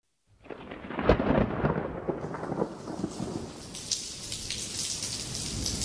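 Thunder rumbling over falling rain, the rumble loudest about a second in and the rain hiss growing toward the end.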